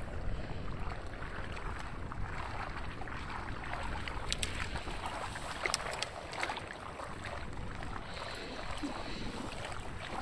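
Sea water lapping and sloshing against a concrete harbour wall, with wind buffeting the microphone. A few short clicks come near the middle.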